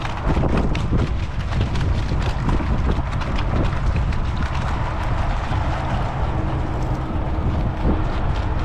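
Wind rumbling on the microphone aboard a rowing eight at rest, with scattered small clicks and knocks, most of them in the first half.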